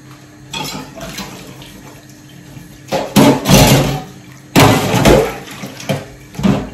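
Water from a kitchen tap running and splashing, faint at first, then in three loud gushes in the second half.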